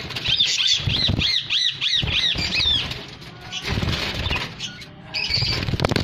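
Budgerigars chirping in a quick run of about eight rising-and-falling chirps over the first few seconds, with more chirps near the end. Low rustling and handling noise runs around them.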